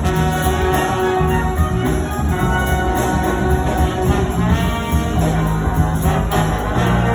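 A high school big band playing an up-tempo jazz tune, with the brass section on sustained chords over bass and drums.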